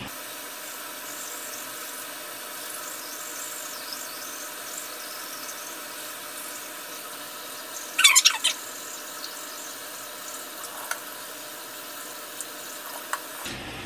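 Teeth being brushed with a manual toothbrush over a steady hiss, with a short squeaky sound about eight seconds in.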